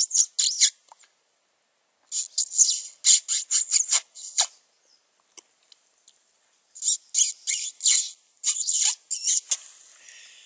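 Pine marten close behind the recordist: three runs of quick, sharp scratchy strokes, several a second, with short quiet gaps between them.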